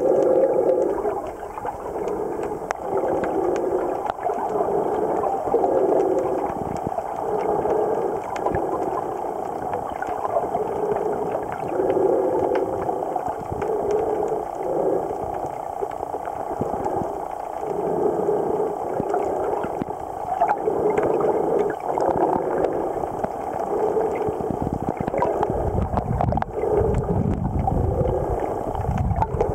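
Muffled underwater sound picked up by a submerged camera: water swishing in pulses about once a second, with a deeper rumble of water movement near the end.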